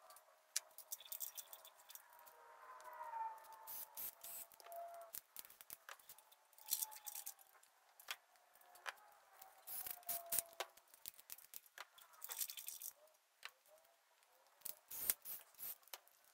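Scattered light metallic clicks, rattles and short rustling bursts from hand tools being worked and handled on the rocker-shaft bolts of a small-block Ford V8 on an engine stand.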